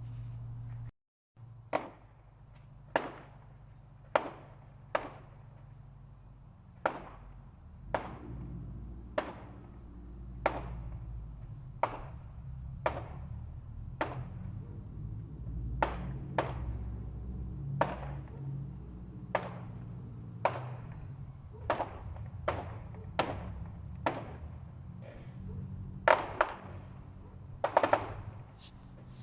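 Distant fireworks going off, a sharp bang about once a second, each with a short fading echo, over a low rumble; near the end the bangs come louder and in quick clusters.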